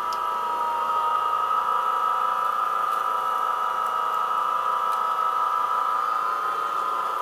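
Vileda rechargeable electric sweeper running, its brush motor giving a steady whine as it is pushed over short-pile carpet, picking up scattered debris.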